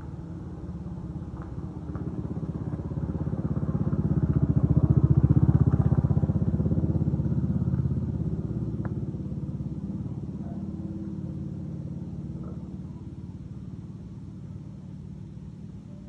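A motor vehicle's engine passing close by. It grows to its loudest about five seconds in, then fades away slowly.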